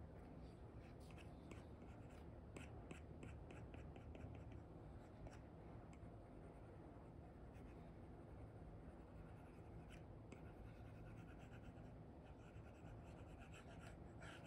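Apple Pencil 2 with an Elecom replacement nib scratching and tapping across a paper-like screen protector on an iPad, in runs of quick short painting strokes. Faint, over a low steady room hum.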